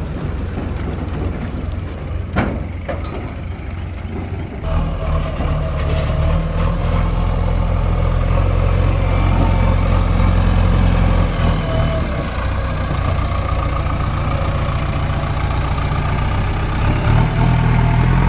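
Heavy diesel engine running. A little under five seconds in the sound changes abruptly to a louder, fuller engine note, which swells near the middle as the engine works harder.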